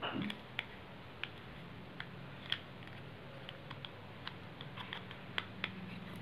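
Faint, irregular small clicks and taps of makeup items being handled, about a dozen spread over several seconds, over a faint steady low hum.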